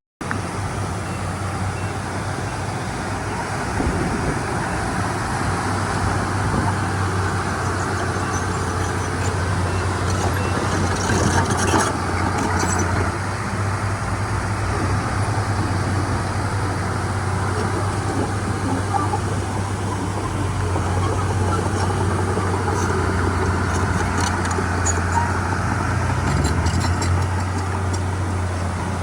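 Heavy diesel engine running steadily with a deep hum, with a cluster of sharp metallic clanks about midway and more near the end.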